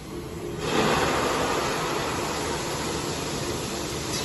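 Servo piston filling machine on a lube-oil line running, with a steady hissing rush that swells in under a second in.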